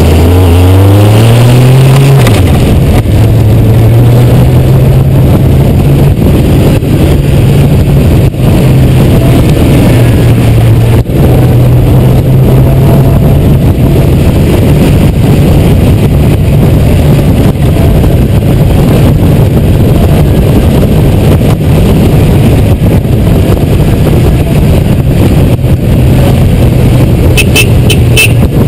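Honda GoldWing 1500's flat-six engine pulling through the gears. It rises in pitch over the first two seconds, then holds a fairly steady hum. Heavy wind noise on the bike-mounted microphone runs under it.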